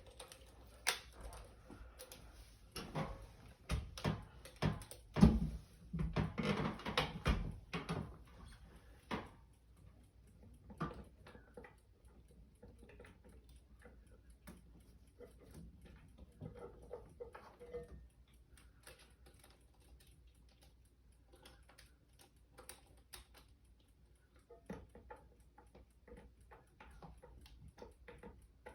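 Scattered clicks, taps and knocks of hand work on window-shade mounting hardware and tools, busiest around six to seven seconds in, with a louder thump about five seconds in and sparser taps later.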